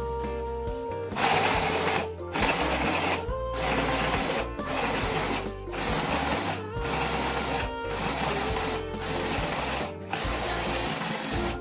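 Small electric mini food chopper running in short bursts of about a second each, about nine in a row with brief gaps, as its motor top is pressed and released to pulse-chop.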